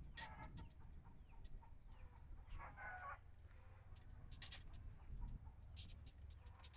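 Near silence: a faint outdoor background with scattered soft clicks and a brief faint call about two and a half seconds in.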